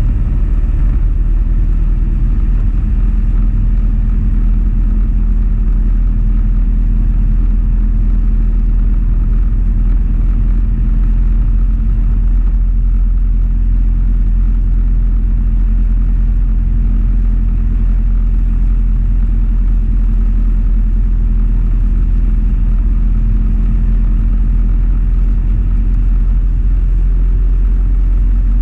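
Motorcycle cruising at a steady speed: an even engine note with a deep, steady rumble, no change in revs.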